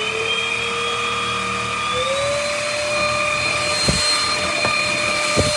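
UML0 N8 cordless stick vacuum's motor running with a steady whine after spinning up, stepping up in pitch about two seconds in. Two brief low thumps come near the end.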